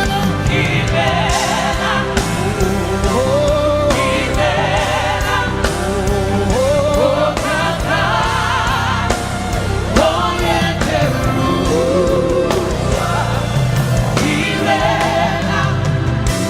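Live gospel worship music: a vocalist and choir singing with vibrato over a band, with steady bass and drums.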